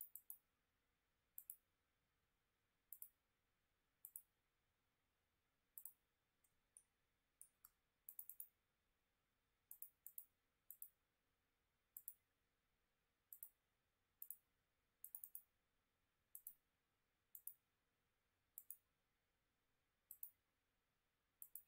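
Faint computer mouse clicks, mostly in quick pairs of button press and release, about one every one to one and a half seconds, against near-silent room tone.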